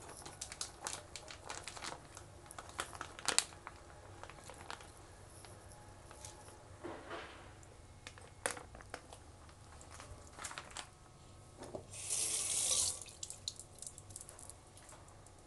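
Shredded taro dropping from a plastic bag into a pot of hot coconut milk and water, with small splashes, drips and plastic rustling. A louder hiss of about a second comes near the end.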